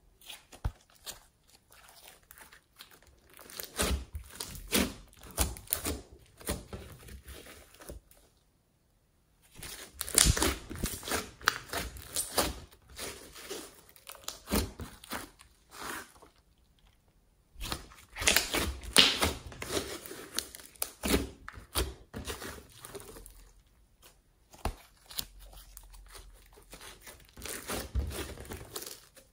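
Thick glossy slime mixed with clay and glitter being stretched, squeezed and folded by hand: irregular clusters of sticky clicks and crackles as the slime pulls apart, with two short pauses about 8 and 16 seconds in.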